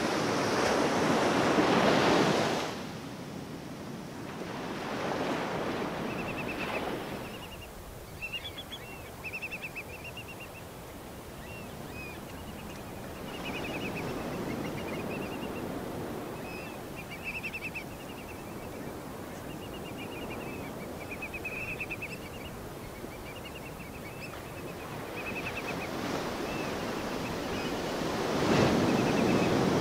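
Ocean surf breaking and washing in slow swells, loudest at the start and again near the end. From about six seconds in, a small bird repeats short, rapid high chirping trills over the waves.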